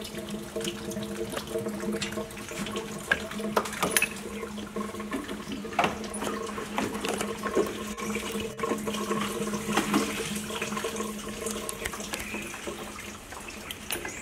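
Scattered light clinks and knocks of metal and plastic as a BMW B48 engine hanging from an engine crane is eased out of the engine bay, over a steady hum from a running machine.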